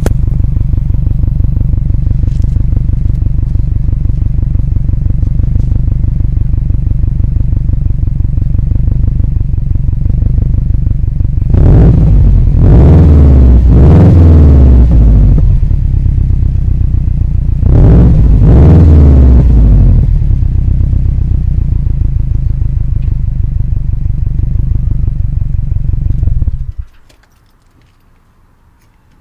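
2003 Subaru WRX's turbocharged flat-four engine idling steadily through its exhaust, with an exhaust leak newly sealed with a clip. It is revved twice, a few seconds each time, about twelve and eighteen seconds in, and then shut off near the end.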